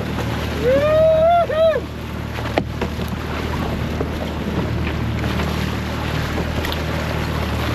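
Boat engine running steadily under wind and water noise. A person gives a short call about a second in, and there is a single knock a little later.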